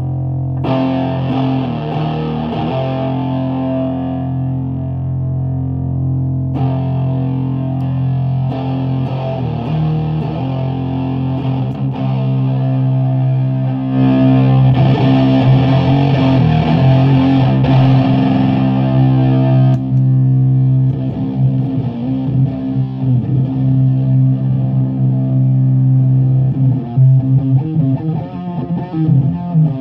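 Electric guitar ('78 Gibson Les Paul Custom) through fuzz pedals into a 50-watt Bridge City Sound Morrison amp and a 6x12 cabinet with Celestion V70 Golds, holding a loud fuzz-distorted drone. Its tone changes abruptly several times as pedals are switched and their knobs turned, and it turns choppy near the end.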